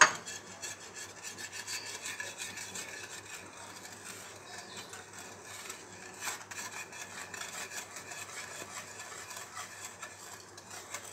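Wire whisk stirring cocoa powder into hot sugar syrup in a steel saucepan, its tines scraping and rattling against the pan in quick repeated strokes. A sharp clink right at the start.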